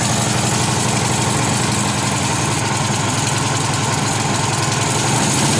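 MTD Yard Machine snow blower's 179 cc single-cylinder four-stroke engine running steadily, just started on the first pull and still cold, warming up.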